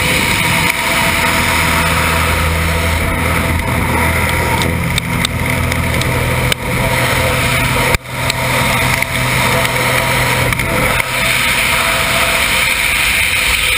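Heavy wind rushing and buffeting over a skydiver's camera microphone around the exit from a small jump plane. A low steady drone runs underneath until near the end, and there is a brief knock about eight seconds in.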